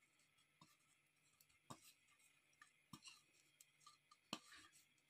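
Faint, scattered taps and clicks, about four of them, from potato tikkis being handled and coated in a dry masala mix.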